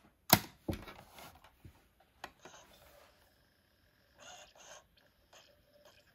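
Pop-up lid of a Technics SL-XP150 portable CD player snapped shut with a sharp click, followed by a second, smaller click. Then small mechanical ticks and two brief soft whirs as the disc spins up and is read.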